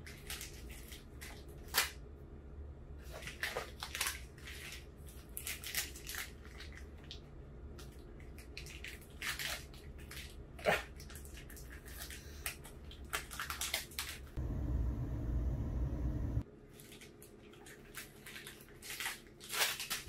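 Nature Valley Crunchy granola bar's foil wrapper crinkling in short, irregular crackles as it is slowly and carefully picked open. A steady low rumble runs for about two seconds past the middle and cuts off suddenly.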